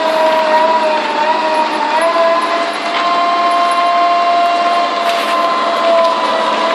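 A Doosan excavator running, with a steady high-pitched whine over the engine noise; the whine dips slightly in pitch and recovers about two seconds in.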